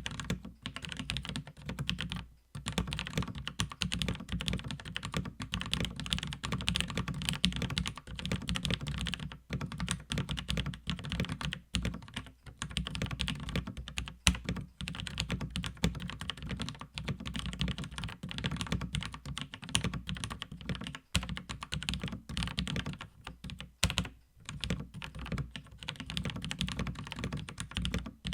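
Unitek K-160 mechanical keyboard with vintage Cherry MX Black switches being typed on, a fast continuous run of keystrokes with a few brief pauses.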